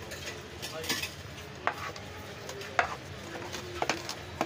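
Thick fufu dough being stirred and worked with a wooden paddle in a metal pot, with about five sharp knocks and scrapes of the utensils against the pot's side.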